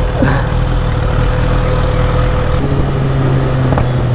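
BMW S1000RR inline-four engine running with street traffic around it. About two and a half seconds in, the sound changes to a steady cruising engine note as the bike rides along in third gear.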